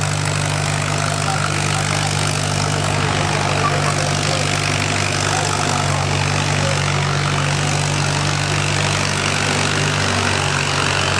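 Antique row-crop tractor's engine running steadily under load as it drags a weight-transfer pulling sled, an even low drone that eases slightly near the end.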